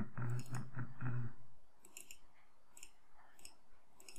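Computer mouse clicking about five times, roughly a second apart, with a man's brief low murmur in the first second or so.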